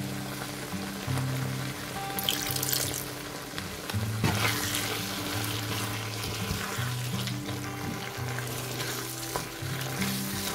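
Chicken and mushroom sour-cream sauce sizzling and bubbling in a frying pan while a silicone spatula stirs it, with swells of sizzle at about two and four seconds in. Soft background music plays underneath.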